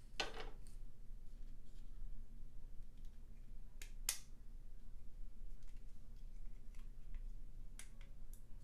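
Small plastic and metal model-locomotive parts being handled and fitted together: a brief rustle at the start, then a few sharp small clicks, two close together about four seconds in and fainter ones near the end, over a low steady hum.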